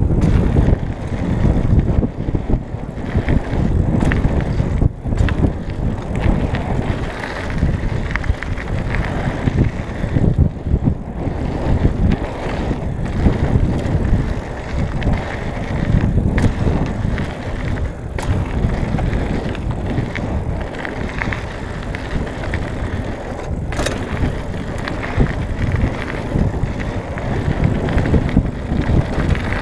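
Trek Marlin 6 hardtail mountain bike rolling down a loose gravel trail: steady tyre noise on gravel, with a few sharp knocks from the bike over bumps.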